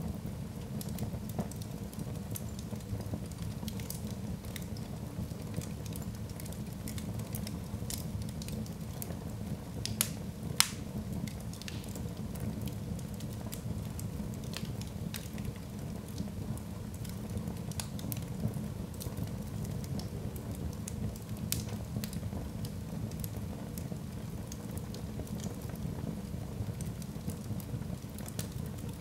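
Log fire burning in a hearth: a steady low rumble of flame with many small crackles throughout, and two sharper pops about ten seconds in.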